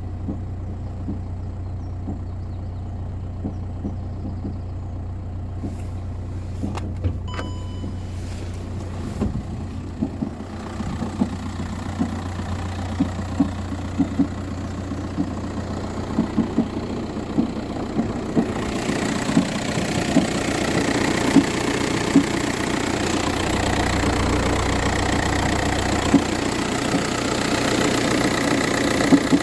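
VW Touran 1.9 TDI four-cylinder diesel idling on a cold start, with sharp irregular knocks that come more often from about ten seconds in. About two-thirds of the way through the engine sound grows louder and fuller. The knock is a cold-start noise that the owner hears only in the morning, with no issue when driving.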